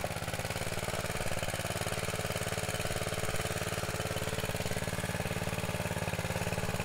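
Small engine of an Egedal walk-behind tree-cutting machine running steadily at idle as the machine is manoeuvred on grass.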